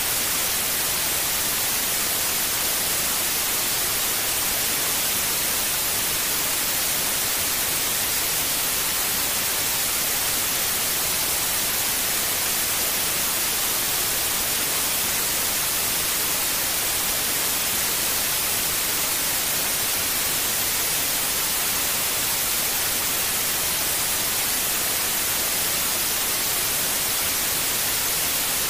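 Continuous electronic white noise, a steady, unchanging hiss that is brightest in the treble, played as a sleep aid for babies.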